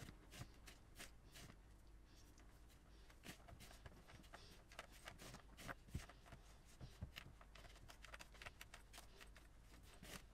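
Faint, irregular scratching and light ticks of hands rubbing butter into flour in a mixing bowl.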